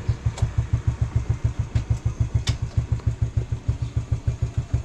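Motorcycle engine idling: a steady low pulsing of about eight beats a second.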